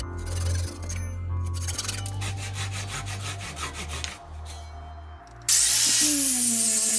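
Hand saw rasping through a wooden block in repeated strokes. About five and a half seconds in, an angle grinder with a sanding disc starts working wood, much louder, its motor tone dipping as it bites.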